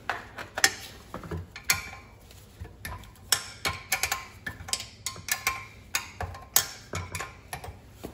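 Socket wrench ratchet clicking in short, irregular runs, mixed with metal clinks from turning bolts while taking a pressure washer engine apart.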